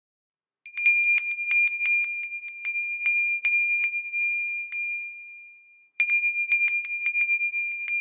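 A small metal bell rung rapidly over and over. It starts about a second in, dies away, and rings again sharply near the end.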